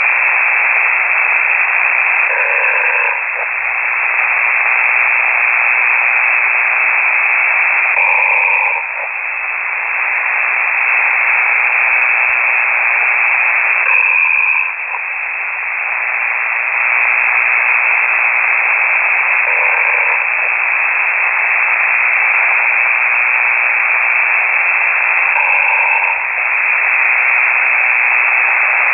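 A person snoring over an open ham radio transmitter, heard through a shortwave receiver: steady radio hiss with a pitched snore about every six seconds, five in all.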